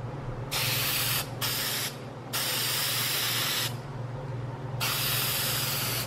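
Rust-Oleum Appliance Epoxy aerosol spray can hissing in four bursts, the longest about a second and a half, as the paint is sprayed on. A steady low hum runs underneath.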